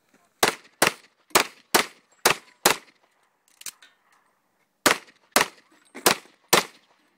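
Competition pistol firing six fast, evenly spaced shots about half a second apart, one per target. After a pause of about two seconds for the stage's mandatory reload, four more shots follow at a similar pace, fired strong hand only.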